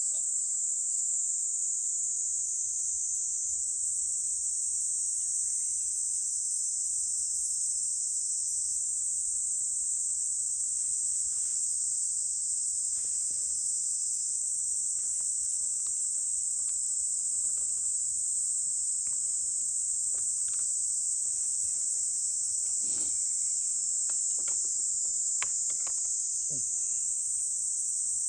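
A steady, high-pitched insect chorus in summer heat, unbroken throughout, with a few faint clicks and knocks underneath.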